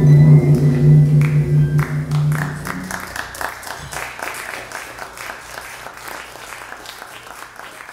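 A jazz trio's last chord on keyboard and upright bass, with a low bass note, rings out and dies away over the first three seconds. Audience applause begins about two seconds in and carries on, gradually thinning.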